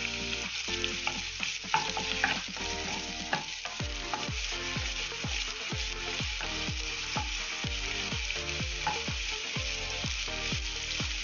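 Chopped onions sizzling in hot oil in a kadai (wok) as they are stirred with a wooden spatula. A regular low beat runs underneath from about four seconds in.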